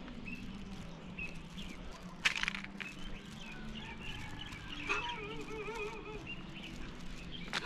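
Small birds chirping over a steady low background hum, with a sharp knock about two seconds in and a longer wavering call with several tones about five seconds in.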